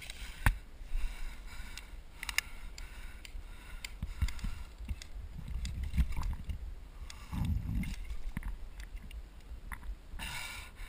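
Low, irregular rumbling on a body-worn camera microphone, of the kind made by wind and the wearer's movement, with a few sharp clicks.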